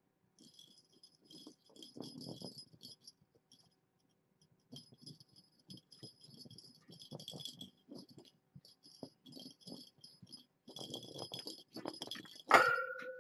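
A small jingle bell rattling in short irregular bursts, with soft rustling and knocking, like a kitten's bell toy being batted about. Near the end comes one sharp, loud metallic clank that rings briefly.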